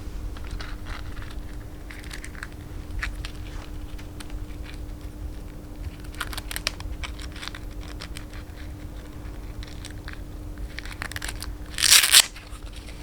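Handling noises: scattered short rustles and clicks, then a loud rasping, crinkling rustle lasting about half a second near the end, over a steady low hum.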